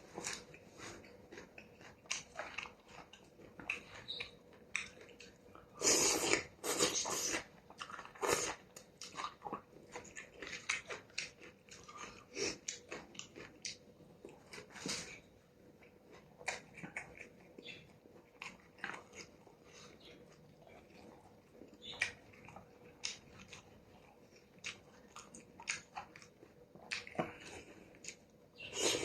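A person eating noodle soup with beef close to the microphone: irregular chewing and wet mouth sounds, with a few louder bursts about six and eight seconds in.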